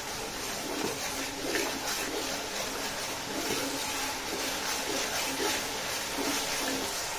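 Ground onion paste frying in hot oil in a large metal pot, sizzling steadily, while a steel ladle stirs and scrapes through it every second or so.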